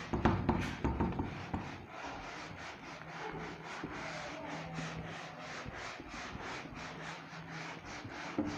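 Whiteboard being wiped with a duster in quick back-and-forth rubbing strokes, about four a second.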